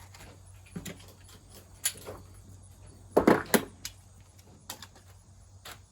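Handgun being handled and loaded: scattered short metal clicks and knocks, the loudest a quick double knock about three seconds in.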